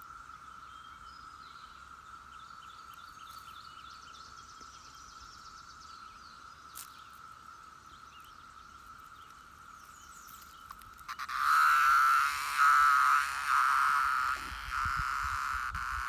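Steady drone of a 17-year periodical cicada chorus (Brood IX). About eleven seconds in, a periodical cicada held between the fingers starts buzzing loudly close by, in a string of buzzes broken by brief gaps.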